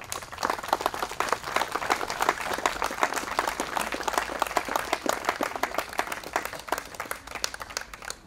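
Audience applauding: many hands clapping, building up quickly and thinning out near the end.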